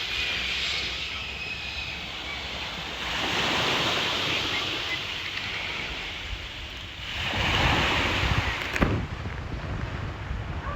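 Surf washing in on a beach, swelling up twice, with wind rumbling on the microphone and a single sharp click near the end.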